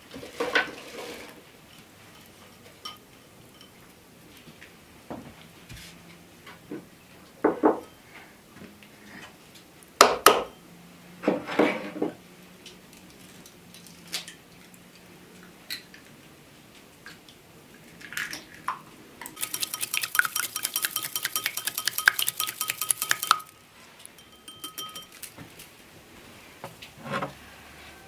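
Kitchen crockery and utensil sounds: the clatter of chopped apples and rice going into a metal pot, and several sharp knocks against bowls. Later comes about four seconds of rapid, even clicking as egg yolks are beaten with a utensil in an earthenware bowl.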